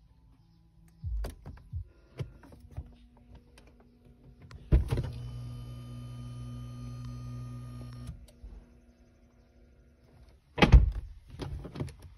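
BMW 3 Series power window motor whirring steadily for about three seconds, starting with a clunk and cutting off suddenly. A few light clicks come before it, and near the end two loud thunks as the driver's door handle is worked.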